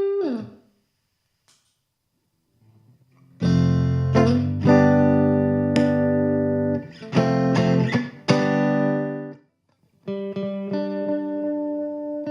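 Electric guitar, a Fender Stratocaster, played through a compressor pedal. A note dies away, and after a short pause strummed chords ring for several seconds with a few fresh strokes, then stop. Sustained notes ring out near the end.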